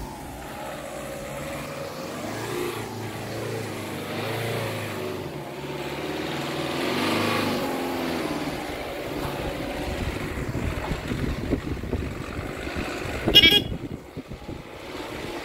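Tata Intra V30 pickup's diesel engine running as the truck drives up and passes close by, its pitch rising and falling with the throttle and loudest about seven seconds in. After it passes there is an uneven low rumble, and a short, loud horn toot comes near the end.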